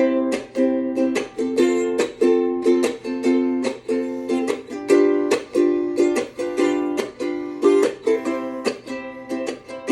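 Ukulele strummed in a steady rhythm, a fresh strum every quarter to half second with the chords changing along the way; no voice.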